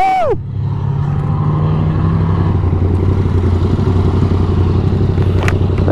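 Yamaha MT-07's parallel-twin engine, fitted with an aftermarket M4 exhaust, running steadily at low revs with a low steady drone. A brief sharp sound comes near the end.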